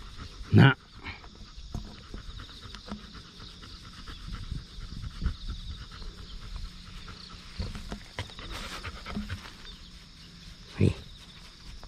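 Golden retriever panting steadily as it lies on grass and is stroked.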